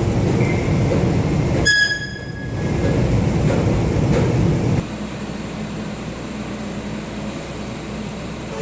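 Subway train rumbling, with a short high electronic beep about two seconds in. The rumble cuts off abruptly about five seconds in, leaving a quieter steady hum.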